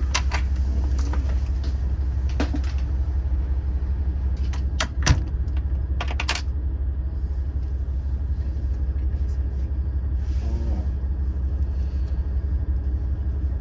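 Steady low rumble of a stopped diesel express train, heard from inside the passenger car, with a few scattered clicks and knocks; the loudest knock comes about five seconds in.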